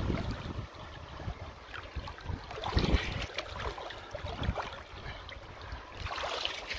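Pond water splashing and sloshing as hands dig and scoop mud and debris off a submerged culvert grate, with irregular splashes throughout.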